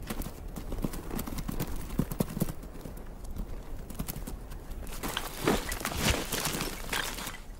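Hooves of bharal (blue sheep) clattering on rock and loose stones as they chase across a steep slope, a quick run of knocks. About five seconds in comes a rush of sliding scree and snow kicked loose.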